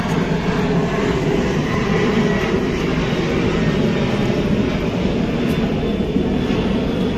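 Steady traffic drone from many motorcycle engines running in a stalled jam, an even rumble with no single event standing out.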